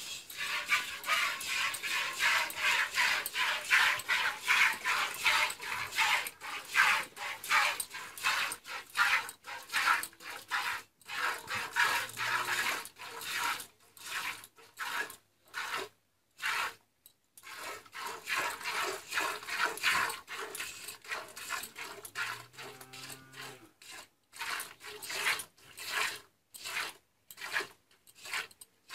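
Jets of milk squirting from a cow's teats into a pail during hand milking, a rhythmic swishing about twice a second that stops briefly a couple of times.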